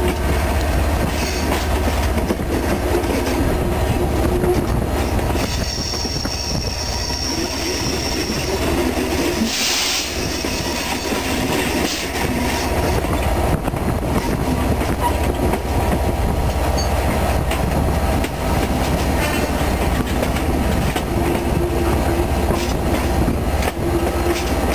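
Class 67 diesel locomotive's EMD two-stroke V12 engine working under power, heard from right beside the locomotive as the train runs, with wheels clicking over rail joints. A high, thin wheel squeal rises over it from about six to nine seconds in as the train takes the curve.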